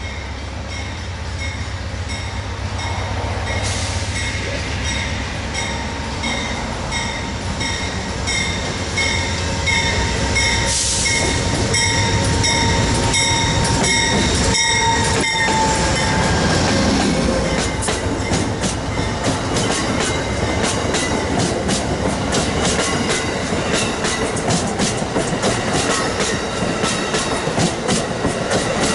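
Amtrak train led by a GE Genesis diesel locomotive approaching and passing close by, its engine rumbling low, while a grade-crossing bell rings about twice a second. Once the locomotive is past and the stainless-steel Amfleet coaches go by, the wheels clatter in a fast rhythm over the rail joints and the sound grows louder.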